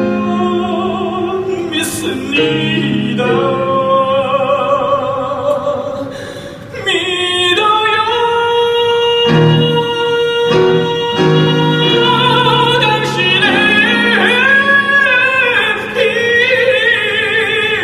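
Live musical-theatre singing in Korean with piano accompaniment: long held notes with vibrato, a brief dip about six and a half seconds in, then a new sustained phrase.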